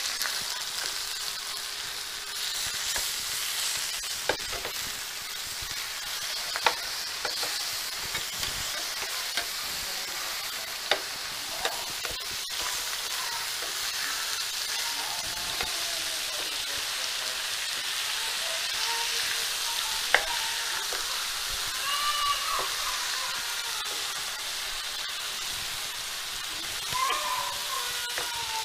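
Chicken pieces in green masala sizzling steadily as they fry in oil in a flat pan, with a metal spatula clicking and scraping against the pan now and then as the pieces are turned.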